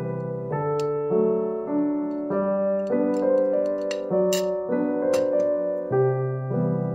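Background piano music, its notes changing about twice a second, with a few sharp clicks over it, the brightest about four seconds in.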